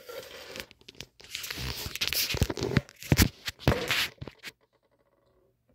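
Handling noise as the camera is moved and set down: rustling and scraping against bedding, with several sharp knocks, ending about four and a half seconds in.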